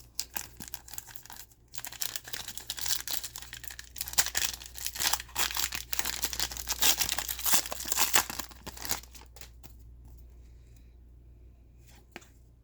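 Foil trading-card pack wrapper being torn open and crinkled in the hands, a crackly rustle that dies down after about nine seconds, with one short click near the end.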